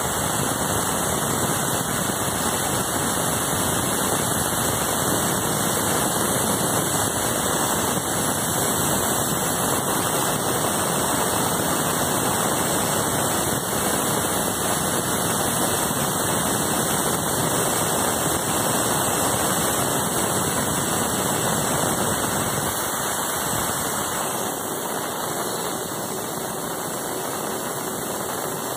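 Large band saw ripping a thick wooden plank lengthwise, with the blade and motor making a steady, dense noise. It gets a little quieter in the last several seconds.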